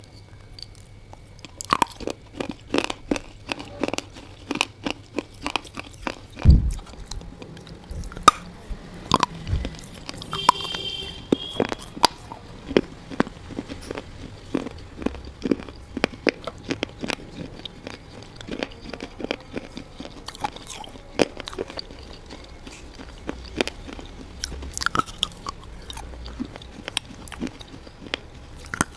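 Close-up crunching of someone biting and chewing hard, brittle clay: many sharp, irregular crunches, with a heavier low thump about six and a half seconds in.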